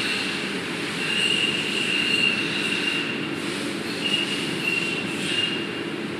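CNC crankshaft grinding machine running: a high-pitched squealing whine that comes and goes in stretches of a second or two, over a steady mechanical rumble.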